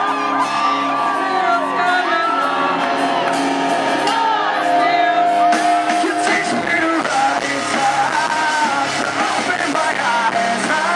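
A live rock band playing and a male singer, recorded loud from the audience. Held notes carry the first half, then the full band comes in about halfway and the sound grows denser and busier.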